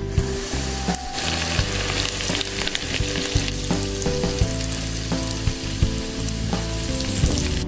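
Hot oil ladled onto a bowl of chili powder, cumin and sesame seeds, sizzling and bubbling as a spoon stirs it in. The oil is poured while stirring so the chili does not scorch.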